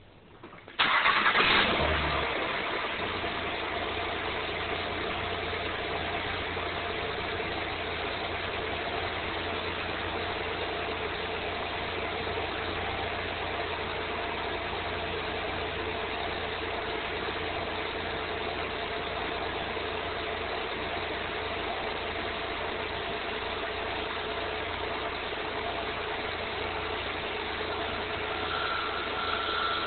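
2008 Honda Accord 3.5-litre V6 cold-started: a loud grinding burst of about a second as it catches, then a steady idle. The owner suspects the start-up grind comes from the VTC actuator. A higher steady tone joins near the end.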